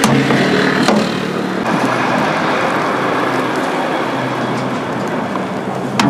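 A motor vehicle's engine running over steady street traffic noise, with a low hum in the first second or so and a sharp click near the end.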